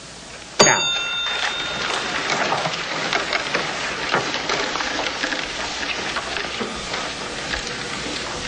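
Many pencils scratching fast on paper at once, making a dense, steady scratchy rustle. It begins about half a second in with a sudden sharp sound that rings briefly.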